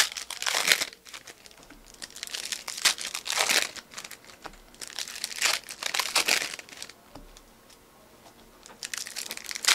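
Foil trading-card pack wrappers (Panini Elite basketball packs) crinkling and tearing as the packs are opened by hand. The sound comes in several bursts a couple of seconds apart.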